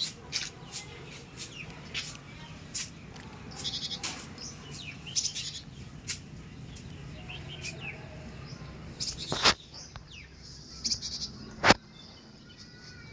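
Puppy whimpering: short, high-pitched cries repeated over and over. Two sharp clicks near the end, the second the loudest sound.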